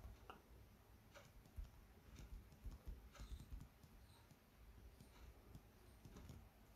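Near silence with faint, irregular light taps of handwriting on a touchscreen.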